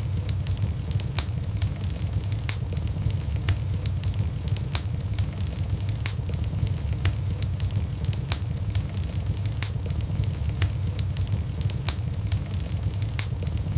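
Wood fire burning in a fireplace: a steady low rumble of flames with frequent sharp, irregular crackles and pops from the burning wood.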